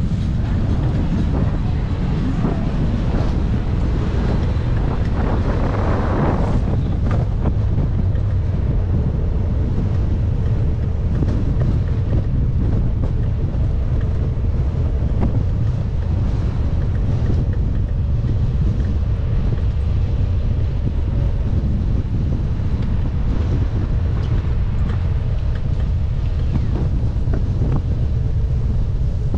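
Wind buffeting the microphone of a camera carried on a moving bicycle: a steady low rumble, with a brief swell of higher hiss about six seconds in.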